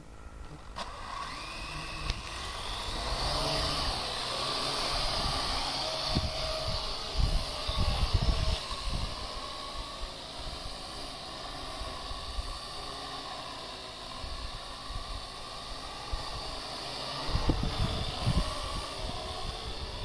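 Parrot AR.Drone quadcopter's electric motors starting up about a second in, the propeller whine rising in pitch as it takes off and then running on with small shifts in pitch as it flies. Wind rumbles on the microphone in gusts around the middle and near the end.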